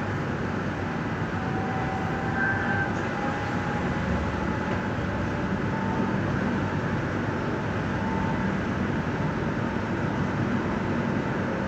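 Stuttgart Stadtbahn light-rail train running along street track, heard from inside the passenger compartment: a steady rumble of wheels on rails and running gear, with a few faint whining tones drifting in and out.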